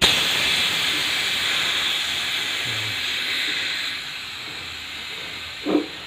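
LPG gas rushing out of an open copper refrigerator pipe as it is let go: a loud hiss that starts suddenly and slowly weakens, with a brief louder burst near the end. The gas is flushing oil and dirt out of a blocked fridge evaporator line.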